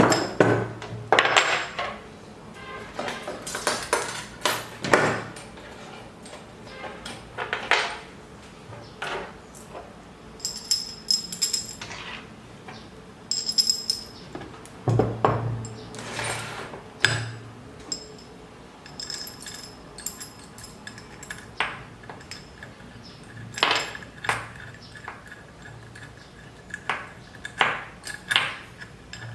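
Metal parts clinking, clanking and knocking irregularly while a CNC Z-axis motor and its mounting parts are handled and fitted by hand, some knocks with a brief high metallic ring.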